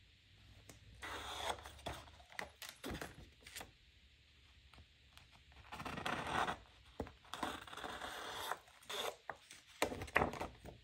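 Scissors cutting through a sheet of adhesive paper, along with the rustle of paper sheets being handled, in several rasping bursts of up to about a second with short pauses between.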